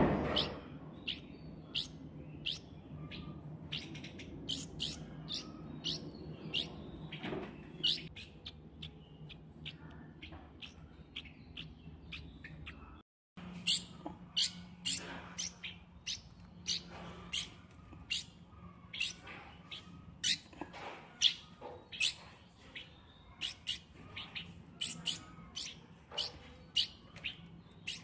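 Young light-vented bulbul fledgling giving short, high, loud begging calls over and over, about one or two a second: a hungry hand-raised chick asking to be fed.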